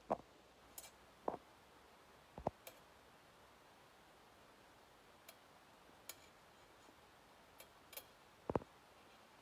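A few faint, scattered clicks and taps over quiet room tone, a sharper one roughly every second or two, with the loudest pair near the end.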